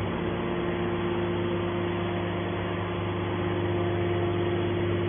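An engine running steadily at a constant speed: an even droning hum with no change in pitch.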